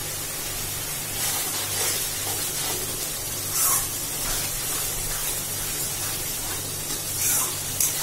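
Spice masala sizzling and bubbling in an aluminium kadai as it is fried down until the oil separates, a steady hiss. A spatula scrapes and stirs through it, with a few louder scrapes, the clearest near the middle and near the end.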